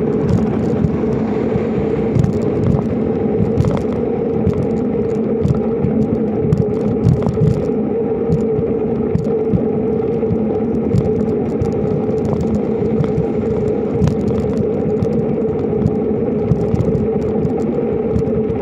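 Riding noise from a bicycle's knobby tyre rolling on a concrete road: a steady hum over a low rumble, with small rattles and clicks throughout.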